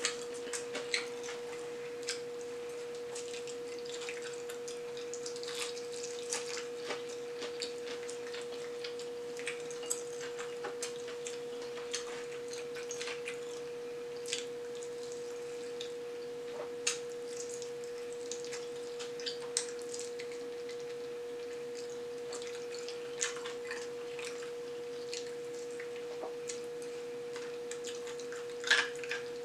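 Close-up eating sounds of fried chicken: scattered short wet clicks, lip smacks and crackles of chewing and picking at the meat, with the loudest cluster near the end. A steady mid-pitched hum tone runs underneath throughout.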